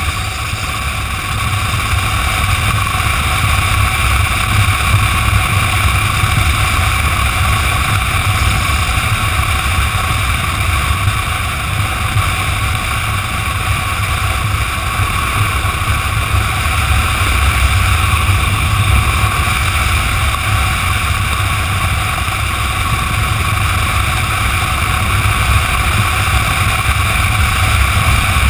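Motorcycle cruising at steady highway speed: wind rush and low buffeting on the microphone, with engine and tyre noise underneath.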